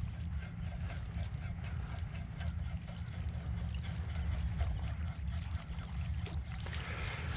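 Spinning reel being cranked on a topwater retrieve from a kayak: light, rapid, irregular ticking over a steady low rumble.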